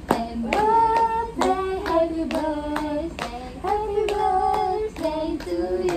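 Voices singing a tune in held, stepping notes, with hand claps keeping time.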